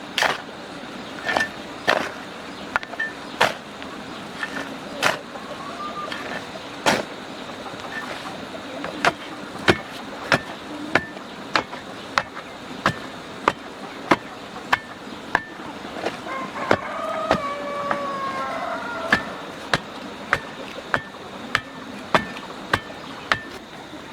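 Repeated sharp tool strikes, like a blade or hammer hitting wood: spaced unevenly at first, then settling into a steady pace of about one and a half strikes a second.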